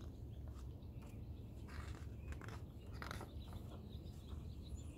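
Paper pages of a large picture book rustling as a page is turned, two short rustles about two and three seconds in, over a steady low rumble.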